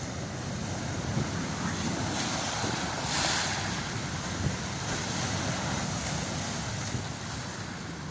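Rough storm surf breaking on a sand and pebble shore, with wind buffeting the microphone; one wave breaks with a louder hiss about three seconds in.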